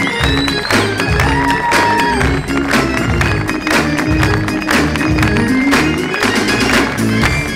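Background music with a steady percussive beat and a pulsing bass line.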